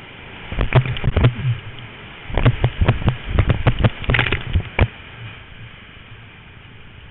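Whitewater rapids rushing with a steady hiss while a kayak plunges through foaming waves. Two bursts of sharp splashes and knocks, water hitting the boat and the camera housing, come about a second in and again from about two and a half to five seconds in.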